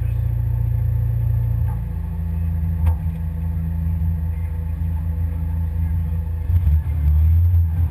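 Pinzgauer military off-road truck's engine running with a steady low rumble, with a single sharp knock about 3 seconds in.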